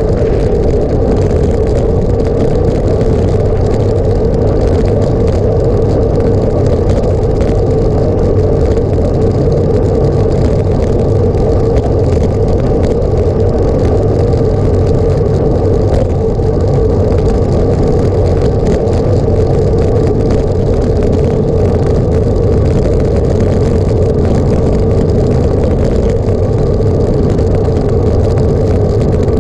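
Engine running at a steady speed, heard from on board a moving vehicle, as a loud, even drone with a low rumble.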